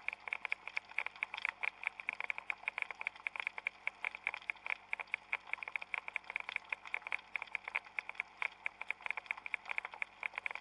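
Underwater crackling: a dense, irregular patter of small clicks, many each second, recorded on a shallow sea floor.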